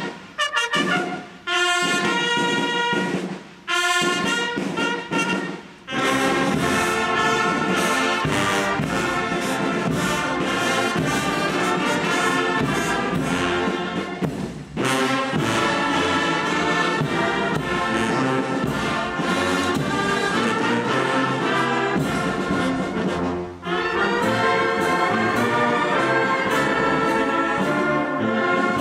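Brass band playing: about three short held chords with gaps between them in the first six seconds, then a continuous tune, breaking off briefly twice, about fifteen and twenty-four seconds in.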